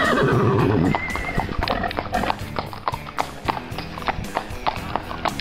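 Horses' hooves clip-clopping on asphalt as several horses walk, in an even stream of hoof strikes. A horse whinnies at the very start, in one loud call that rises and then falls.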